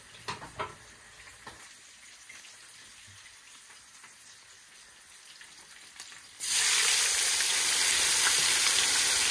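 Hot oil in a frying pan sizzles faintly, with a few light clicks of tongs. About six seconds in, a butterflied fish goes into the oil and a loud, steady sizzle starts suddenly.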